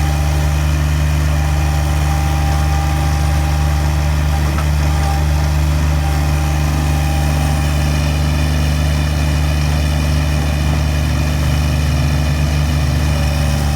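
Loader engine running steadily at an even, unchanging pitch.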